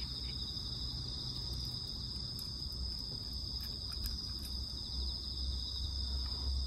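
Chorus of crickets: a steady, high-pitched trill with a fine pulsing texture, over a low steady rumble.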